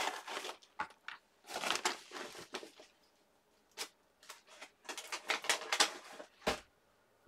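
Rustling and crinkling of a plastic document folder and paper being handled and slid across a craft mat, in short bursts with quiet gaps, then a soft thump near the end.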